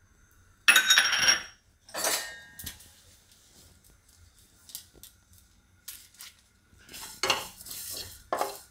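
Two metallic clinks with a short ring about a second in, then from about seven seconds in a wooden spatula stirring whole coriander and cumin seeds in a dry non-stick kadai, the seeds rattling and scraping over the pan as they dry-roast without oil.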